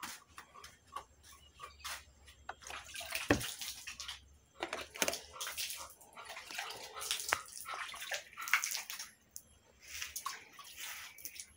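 Milk poured from a carton into a mug of coffee, a liquid pour in several uneven spurts, with a single knock about three seconds in.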